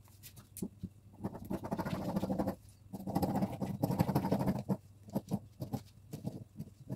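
Dressmaking scissors cutting through satin fabric: rapid snipping of the blades mixed with the rustle of the satin, in two longer runs with a brief pause between, then a few separate snips near the end.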